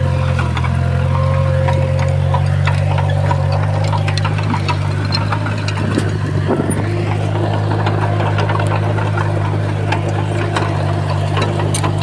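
Small Komatsu bulldozer's diesel engine running steadily, with scattered short clinks and knocks over it.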